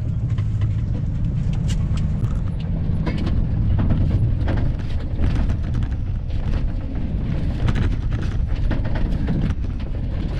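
A van driving along a dirt road, heard from inside the cab: a steady low rumble of engine and tyres, with frequent clicks and knocks from the rough surface.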